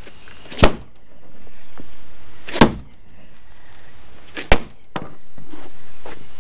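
Sledgehammer blows on a wooden support leg under the coop's frame: three hard strikes about two seconds apart, then a couple of lighter knocks near the end, knocking the weight-bearing leg loose.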